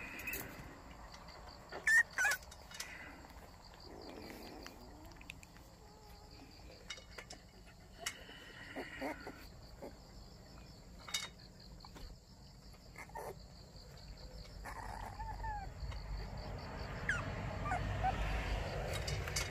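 Young white baekgu puppies giving faint, scattered whimpers and squeaks, with rustling and a couple of sharp clicks about two seconds in.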